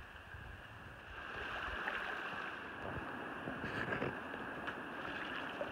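River water running steadily over rocks, growing a little louder about a second in.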